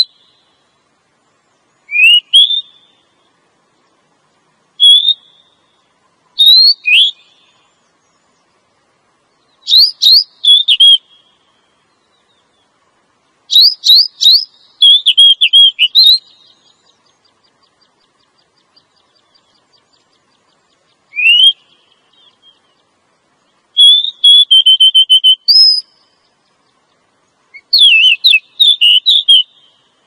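Female oriental magpie-robin calling: short bursts of high whistled notes that rise and fall, repeated every few seconds with silent gaps between. This is the female's call, used to lure males.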